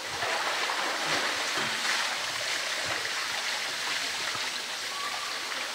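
Steady hiss of running or falling water, even throughout, with no distinct splashes or impacts.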